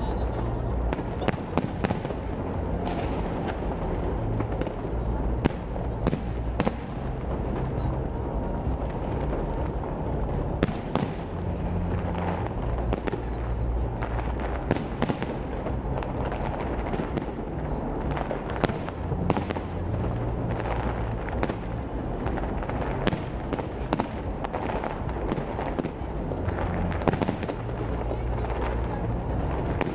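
Fireworks going off in a continuous barrage: many sharp bangs and crackles, several each second, over a steady low rumble.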